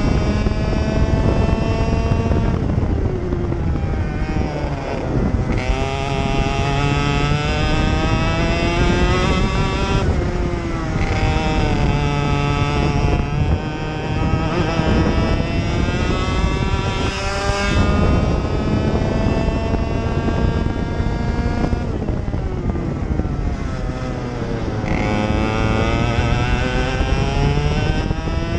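Racing kart engine at full throttle, its pitch climbing steadily along each straight and dropping sharply as the driver lifts for a corner, about five times over.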